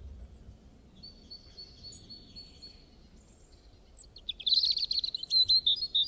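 Birds calling over faint outdoor background noise. A thin, high trill of quick repeated notes starts about a second in, and louder rapid chirping follows near the end. At the very start, the tail of a deep boom fades out.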